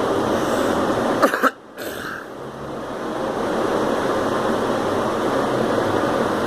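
A girl coughing twice in quick succession, two short sharp coughs about a second in, over a steady fan-like background hiss.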